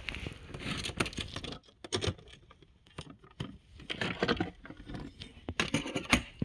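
Handling noise: a phone's microphone rubbing and scraping against a cotton shirt as it is carried, in irregular rustles with a few sharp knocks.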